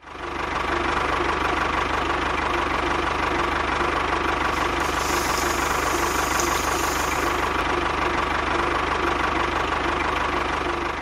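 A small motor running steadily at an even speed: a dense rattle with a steady whine over it.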